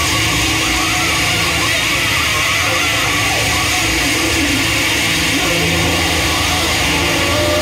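Live electronic noise music: a loud, unbroken wall of hiss over low droning tones, with a few wavering pitched sweeps.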